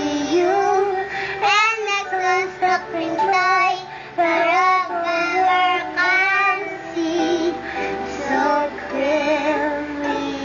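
A young boy singing a song, his voice sliding up and down through phrases and ending on wavering held notes.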